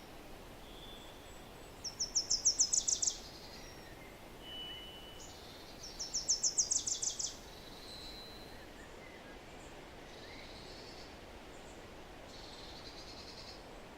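A songbird singing a rapid, high series of about eight to ten quick falling notes, twice, about four seconds apart, with a few fainter chirps and weaker songs from other birds, over a steady outdoor background hiss.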